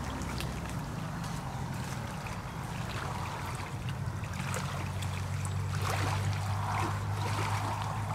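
Speedboat engine humming steadily, with the wash of water churned up around it.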